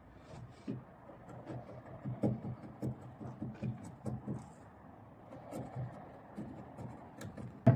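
Wooden boards being handled and fitted: faint rubbing and scattered light knocks of timber against timber, ending on a loud sharp knock right at the end.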